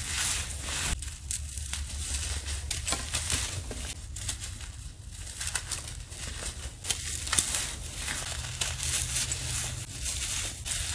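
A dry, crumbly powdery block being crushed, giving a dense run of crunching and crackling with uneven swells.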